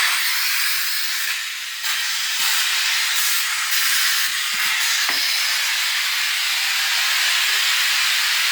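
Compressed air hissing loudly and steadily out of an air compressor's tank through an opened valve as the tank is emptied, with a few faint knocks.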